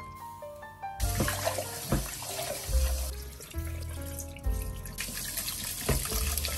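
Kitchen tap water running into a sink, starting abruptly about a second in, over background music.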